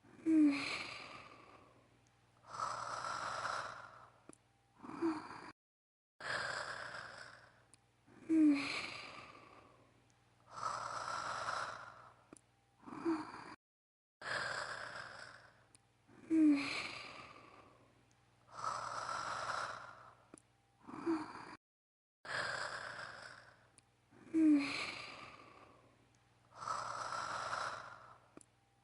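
Anime character Holo's snoring, performed in a woman's voice: a short voiced snort followed by a long breathy exhale and a smaller snort. The same snore cycle repeats about every eight seconds, with a sudden brief silence between repeats.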